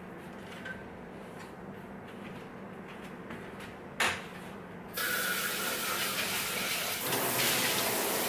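A sharp click, then a kitchen tap running with water splashing for about three seconds, as the food processor's bowl is rinsed.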